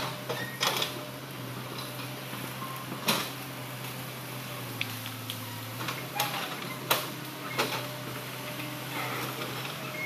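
Hitachi hydraulic excavator's diesel engine running steadily as it works the bucket among logs and soil, with several sharp knocks spread through the work.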